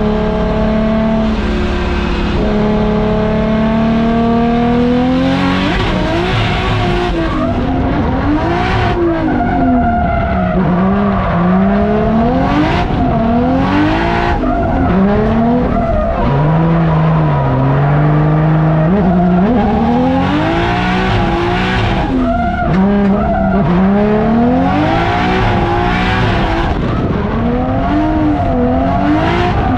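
Nissan S13 drift car's engine, held at high revs for the first few seconds, then revving up and down over and over as the car drifts, with tyres skidding and squealing.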